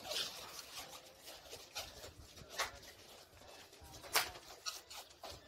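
Quiet outdoor ambience broken by a few short, sharp scuffing sounds, the loudest about four seconds in.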